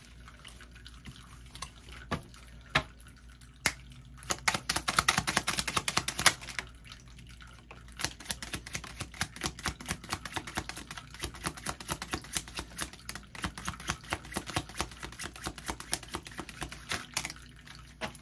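A deck of cards shuffled by hand: quick runs of light papery clicks, densest about four to six seconds in, then a long stretch of steady shuffling and cards being set down.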